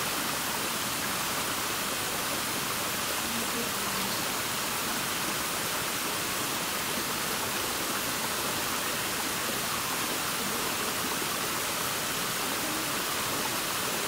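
Small creek cascading over mossy rocks in a string of little waterfalls: a steady, even rush of splashing water.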